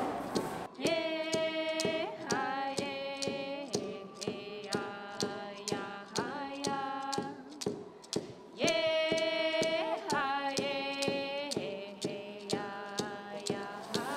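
A voice singing long held notes in a repeating phrase, over a steady beat of sharp clicks about twice a second.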